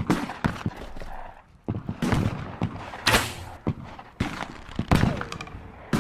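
Homemade crossbow sound effect: a series of sharp snaps and thuds, irregularly spaced, with a longer hissing rush about three seconds in.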